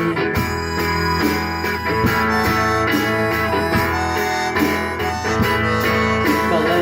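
Band playing an instrumental break: harmonica over strummed guitar, with a steady drum beat.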